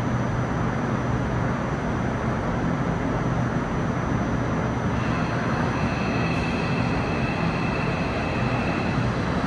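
New Woojin-built Seoul Line 8 electric subway train standing at the platform with a steady equipment hum, then about halfway through a steady high whine from its traction inverter begins as the train starts to pull away slowly.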